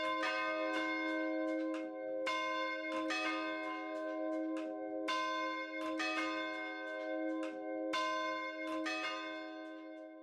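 Church bells ringing: repeated strikes at an uneven pace, about one or two a second, each leaving a long ringing tone that overlaps the next. The ringing fades near the end.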